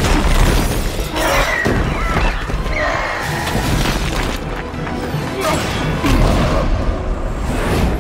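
Film battle sound mix: an orchestral score over crashing masonry, shattering glass and booming impacts as a building's stone facade is smashed apart.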